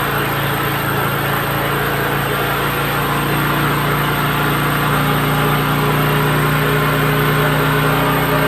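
Engine of a water-well drilling rig running steadily.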